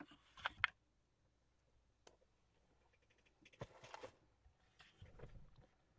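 Quiet handling noises of folded kraft cardstock on a glass cutting mat: a couple of sharp clicks about half a second in, then scattered faint taps and rustles as the piece is set down and moved.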